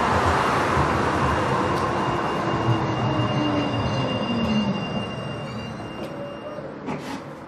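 A tram (streetcar) slowing to a stop: a falling whine of motor and brakes over rolling noise that fades as it comes to rest. A steady high tone cuts out near the end, followed by a few sharp clicks.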